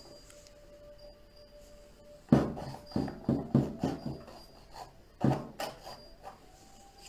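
Palette knife scraping and knocking as oil paint is worked: a quick run of about six strokes, then a pause and two more, over faint background music.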